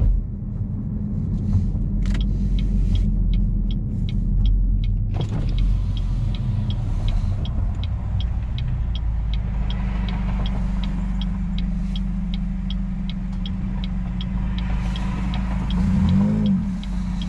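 A 2016 Chevrolet Malibu 2.0T's turbocharged four-cylinder, fitted with a Borla axle-back exhaust and a resonator delete, drones steadily at low road speed and gives a quick rev blip near the end. A turn signal ticks about three times a second through most of it.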